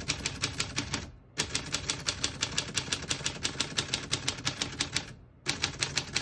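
Keys of a 1946 Smith-Corona Silent portable typewriter being typed in a fast, even run of about seven strikes a second, with two short breaks.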